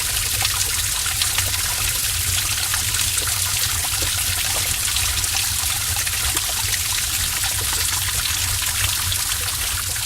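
Stream of water trickling through a cave: a steady wash of running water dotted with many small drips and splashes, over a low rumble.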